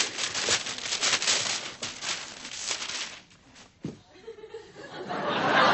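Studio audience laughing, the laughter dying away after about three seconds, then applause building near the end.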